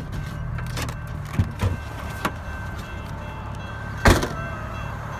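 A car door is opened with a click and knocks, then shut with a heavy thump about four seconds in, over the low steady rumble of the vehicle's idling engine.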